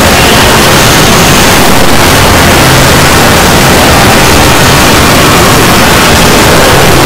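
Dozens of video soundtracks playing over one another at once, merged into a loud, distorted, steady wall of noise in which no single sound stands out.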